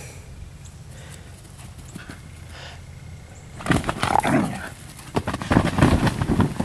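Dogs playing rough: after a quiet start, a flurry of growls and barks with scuffling begins a little past halfway and runs in quick bursts.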